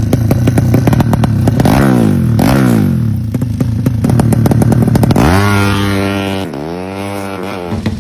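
Drag-bike motorcycle engine, a Yamaha–Honda crossbreed breathing through twin silencers, being revved hard: two quick throttle blips whose revs fall away, then a sharp rise about five seconds in that is held for a second and drops back, with crackling pops from the exhaust throughout.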